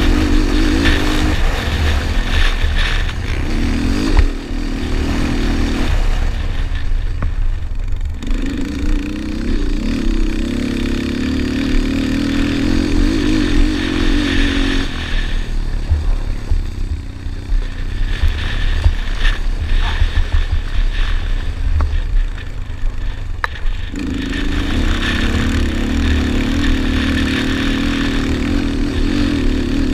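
Yamaha Raptor 250 quad's single-cylinder four-stroke engine pulling hard on the throttle round a motocross track. It eases off twice, briefly about a quarter of the way in and for a longer stretch in the middle, then pulls hard again near the end, over a steady low wind rumble on the helmet-mounted microphone.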